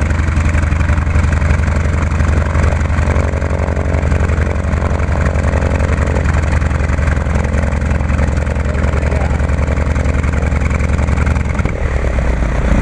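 North American T-28 Trojan's nine-cylinder radial engine idling on the ramp with a steady, even low throb; the beat shifts slightly near the end.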